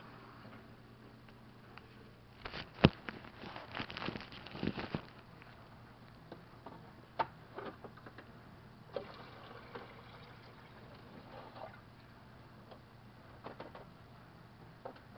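Kitchen handling sounds: a cup and other items being moved about on a counter, with a sharp knock about three seconds in amid a couple of seconds of clatter and rustling, then scattered lighter clicks and knocks.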